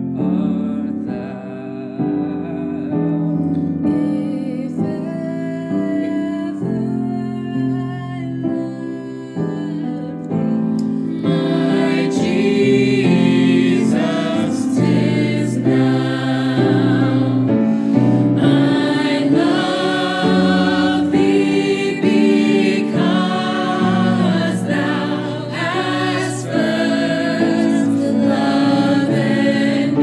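Small mixed vocal ensemble singing a hymn in harmony over Yamaha grand piano accompaniment. The singing is lighter at first, then grows fuller and louder about eleven seconds in.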